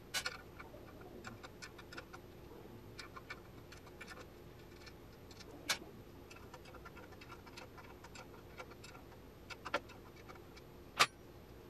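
A wrench working the nuts that hold a Norton Commando's alternator stator on its studs: a run of light metallic ticks and clicks, with a few sharper clinks of tools, the loudest near the end.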